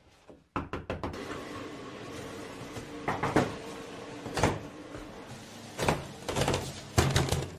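A steady machine hum starts abruptly about half a second in. Over it come several loud, sharp knocks and clatters in the second half, as of a boxy machine being handled and banged.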